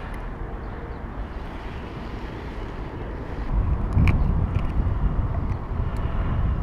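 Steady low rumble of outdoor background noise, growing louder about halfway through, with a few faint clicks.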